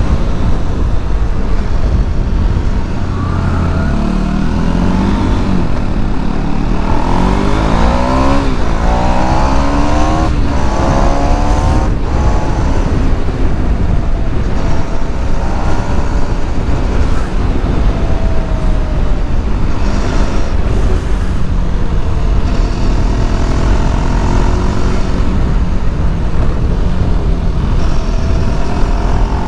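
Motorcycle engine pulling under way while riding. Its pitch climbs in several rising sweeps a few seconds in, as when accelerating up through the gears, and rises once more near the end, all under a steady low rumble of wind on the microphone.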